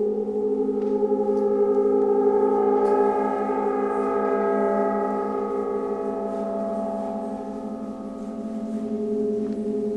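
Large suspended bronze gongs being played, ringing in a sustained, shimmering wash of many overlapping tones. The sound swells over the first few seconds, eases off, then builds again near the end.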